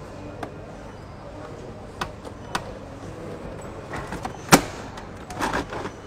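Hard plastic clicks and knocks as the parts of an LG Kompressor canister vacuum cleaner, its filter and dust container, are set down and unlatched, with one louder clack about four and a half seconds in.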